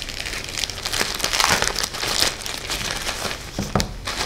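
Plastic parcel packaging crinkling and rustling as it is unwrapped by hand, in irregular crackles with a sharp one near the end.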